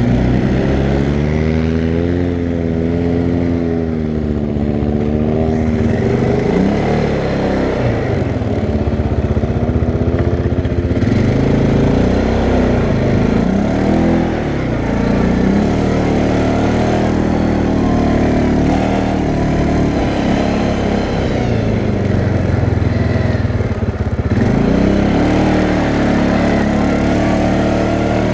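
CFMoto 500A ATV's single-cylinder engine heard from the rider's seat, revving up and down continuously as the throttle is worked through mud. Its pitch rises and falls in repeated swells.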